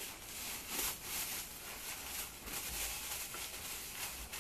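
Rustling and crinkling of a plastic carrier bag and other bags being handled and packed.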